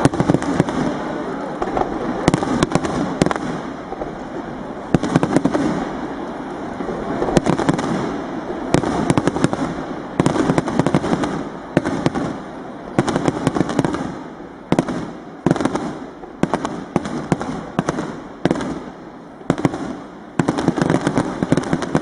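Aerial fireworks display: repeated shell bursts and bangs, with rapid crackling clusters coming thicker in the second half.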